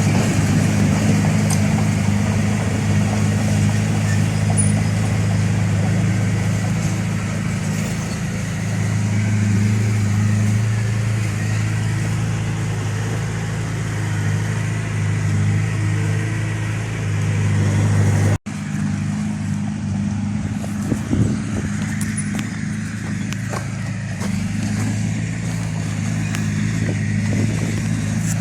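Heavy diesel engine of earthmoving equipment running steadily, its low hum rising and falling a little with load. The sound cuts out for an instant about eighteen seconds in, then the engine carries on.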